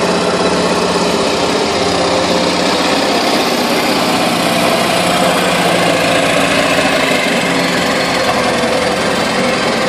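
Monster truck's engine running loud and steady as the truck drives slowly past, with a fast, choppy pulsing beat.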